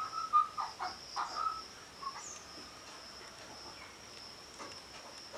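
Insect, likely a cricket, giving a steady high-pitched trill, with a few short bird chirps in the first second and a half.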